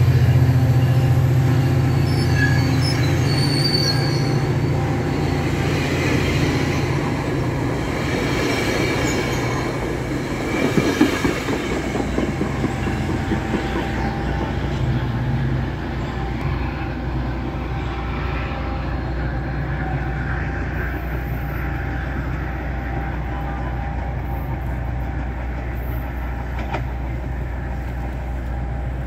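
Caltrain commuter train's bilevel passenger cars rolling past close by: a loud, steady low rumble and hum with rattling and clicking from the wheels on the rails, easing about halfway through to a quieter, steady rumble.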